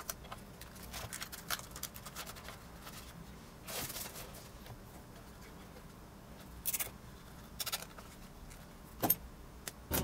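Close handling noise of a rubber balloon being stretched over a small RC receiver and tied shut: scattered faint clicks and rubbing rustles, with a few short, louder swishes.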